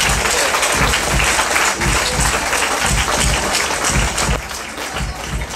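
Audience applauding over background music with a steady bass beat; the applause dies down about four seconds in.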